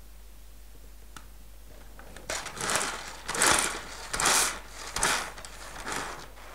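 Nerf Super Soaker Tornado Strike water blaster's plastic pump grip being slid back and forth, about five noisy strokes at a steady pace starting about two seconds in.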